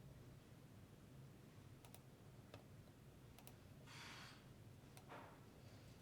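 Faint, scattered clicking at a computer, a few clicks spread over several seconds, over a low steady hum, with a short rustle about four seconds in.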